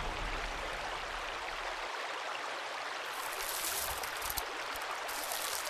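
Shallow, fast-flowing creek running steadily. About three seconds in, brighter splashing water joins it.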